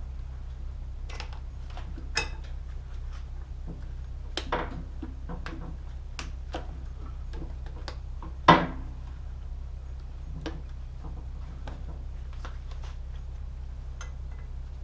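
Scattered clicks and knocks of a metal bicycle tire lever working a stiff urethane tire onto a bandsaw wheel, the loudest knock about eight and a half seconds in.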